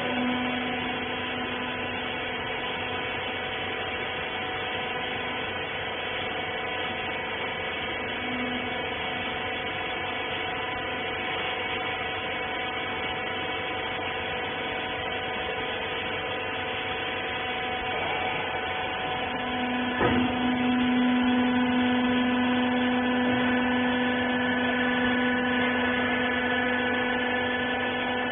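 Hydraulic rag baler's electric motor and hydraulic pump running with a steady, pitched hum. About 20 seconds in there is a click, and the hum then grows louder with added higher tones, as the pump takes on load.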